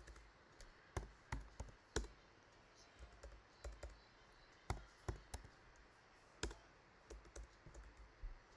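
Faint, hesitant keystrokes on a computer keyboard: single taps and short runs of two or three, with pauses between, as a few characters are typed and backspaced.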